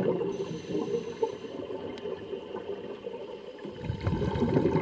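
Scuba air bubbles gurgling underwater, weaker through the middle and swelling again near the end, with a faint click about halfway.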